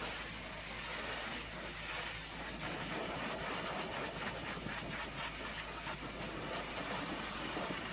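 Pressure washer lance spraying a high-pressure jet of water onto the side and wheel arch of a tanker trailer: a continuous hiss of spray, with a steady machine drone underneath.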